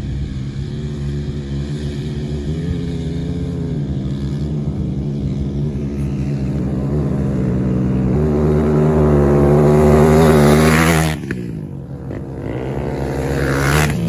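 Dirt bike engine climbing a hill toward the microphone, getting steadily louder, with its pitch stepping up and down a few times as the rider works the throttle. About eleven seconds in the engine drops away sharply as the throttle is cut, then revs up again as the bike comes close.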